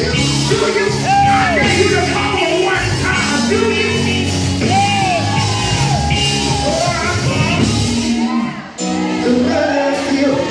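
A man singing and shouting gospel into a microphone over loud church music, in a reverberant sanctuary.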